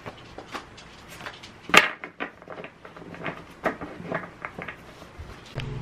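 Printed photos and their plastic sleeve and paper envelope being handled and shuffled: a run of light taps, crinkles and rustles, the sharpest about two seconds in. Near the end a steady low hum starts.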